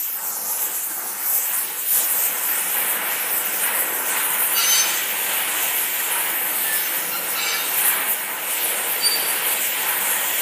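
Oxyacetylene torch flame hissing steadily and loudly as it heats a section of steel pipe for forging.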